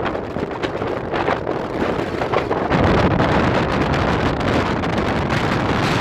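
Strong wind buffeting the microphone: a gusty rushing noise that grows louder and deeper about three seconds in.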